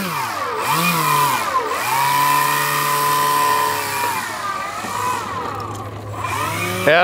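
Electric motor and propeller of a Hangar 9 Piper Cub RC model plane, running on a 6-cell battery, whining as it taxis across grass. The pitch rises and falls with the throttle: it dips twice in the first two seconds, holds steady for a couple of seconds, then sinks and picks up again near the end.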